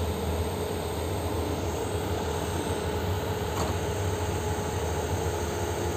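Liebherr R9200 mining excavator's diesel engine running steadily, a deep even drone with a constant whine above it.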